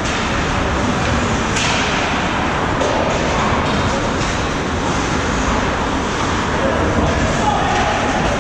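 Ice hockey game in play: a steady, noisy arena din of play and distant voices, with one sharp knock about a second and a half in.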